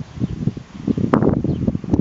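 Gusty wind buffeting the microphone: a loud, choppy low rumble that swells and drops irregularly, with one sharp knock about a second in.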